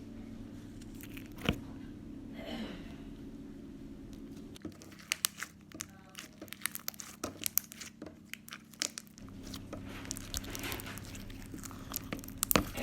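Slime being squeezed and poked, giving a run of quick crackling, popping clicks, thickest in the middle of the stretch and again near the end, over a steady low hum.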